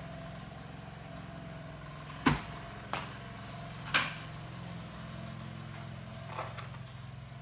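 Motorcycle workshop background: a steady low hum, with three sharp knocks a little after the middle, the first the loudest, and a couple of faint taps near the end.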